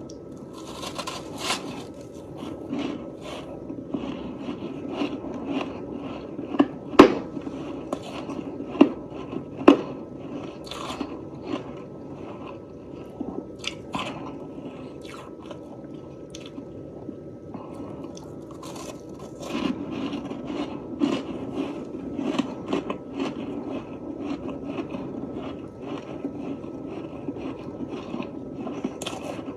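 A person chewing and crunching a mouthful of freezer frost, with many small crackling crunches and three sharper, louder crunches about a quarter to a third of the way in.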